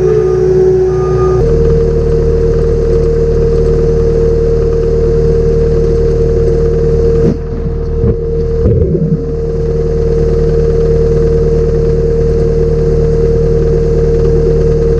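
An engine running steadily, its tone shifting about a second and a half in, with a brief break a little past the middle.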